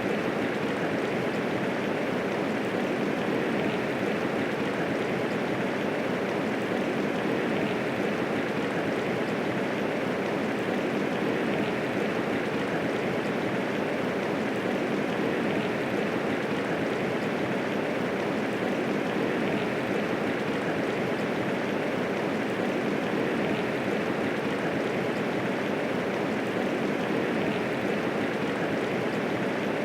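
Medium rainfall, a steady, even hiss of many raindrops with no thunder.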